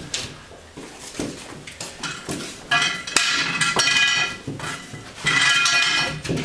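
A drywall sheet being handled and set against a wall of foam insulation panels: scattered knocks and scrapes, then two squeaks about a second long, one near the middle and one near the end.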